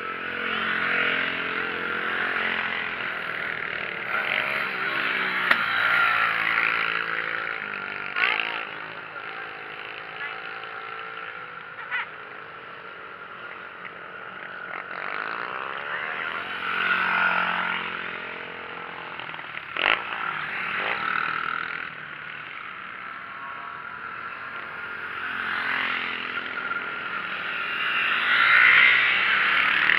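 Small mini GP racing motorcycles running on a wet track, their engines revving up and down as a group passes. The sound swells three times, loudest near the end, with a few sharp clicks in between.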